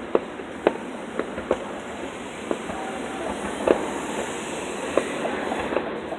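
Firecrackers going off: scattered sharp pops at uneven intervals, over a steady rushing background noise.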